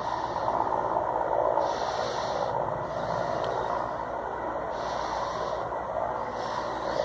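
Distant helicopter in flight, approaching: a steady noisy hum without distinct blade beats.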